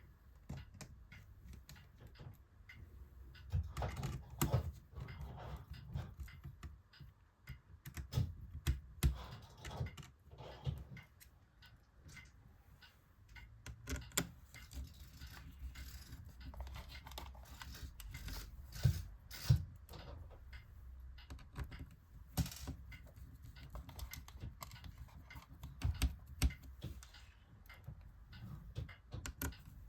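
Irregular clicks, taps and light knocks of a screwdriver and plastic and metal laptop parts being handled during reassembly, with a few louder thuds.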